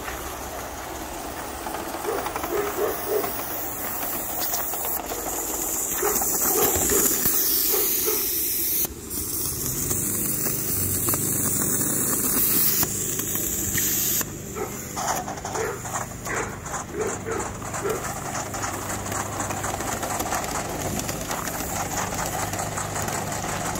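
Live-steam model NSWGR C38 class locomotive hissing steam, louder for several seconds in the middle.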